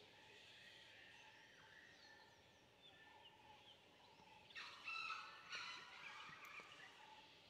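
Gray junglefowl (Sonnerat's junglefowl) calling: a broken, staccato fowl call in two bursts about halfway through. Faint thin chirps of small birds come before it.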